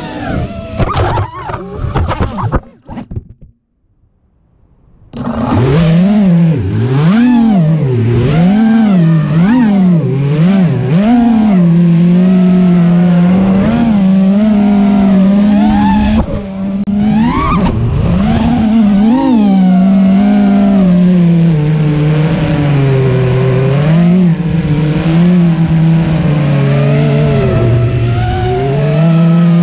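FPV quadcopter's four Xing Camo 2208 2450KV brushless motors and propellers whining, the pitch rising and falling constantly with the throttle. Near the start the sound comes in choppy, crackling bursts and then drops out almost completely for about two seconds before the motor whine comes back loud.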